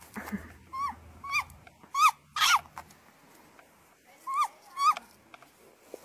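Great grey owl giving short, high calls, each rising then dropping in pitch, in three pairs spaced a second or two apart.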